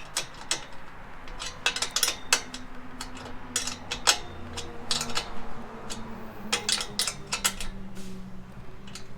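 Wrench tightening bolts into rivet nuts on a fog light mount: irregular sharp metallic clicks and clinks of the tool working on the bolts.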